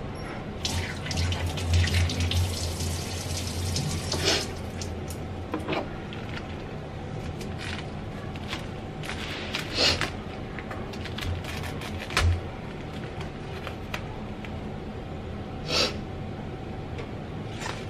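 Food-prep sounds: a head of lettuce handled in its plastic bag and cut with a knife, with plastic crinkling, a dense rushing stretch for the first few seconds, and a few sharp knocks a few seconds apart.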